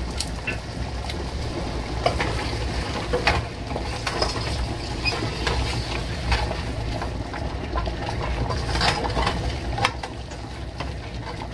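Wooden spoon stirring and scraping ground beef in a stainless steel pot, with scattered clicks of the spoon against the pot over a steady low hum.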